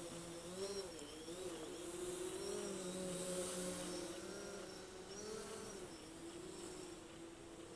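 DJI quadcopter drone in flight, its propellers giving a steady hum whose pitch wavers up and down as it manoeuvres.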